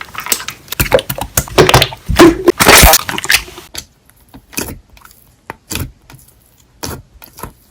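Slime being squeezed and pressed by hand: dense crackling and squishing for the first three and a half seconds or so, then scattered single pops and clicks.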